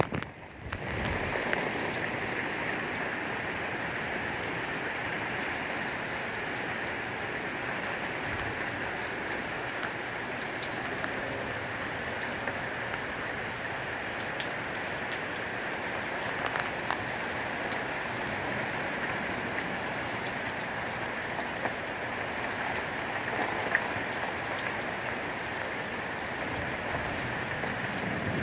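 Rain falling steadily in a thunderstorm, a continuous hiss with scattered sharp drop ticks.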